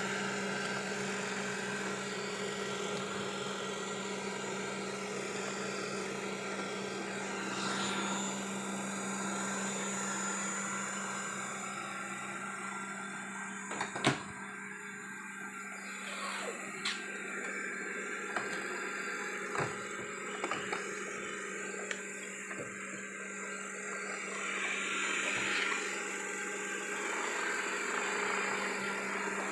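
Robot vacuum mop running steadily with a constant motor hum, with a few short sharp knocks, the loudest about halfway through.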